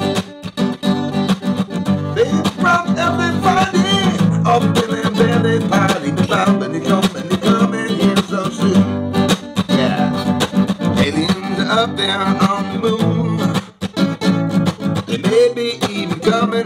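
Outro music led by guitar, playing continuously, with a brief dip in level about fourteen seconds in.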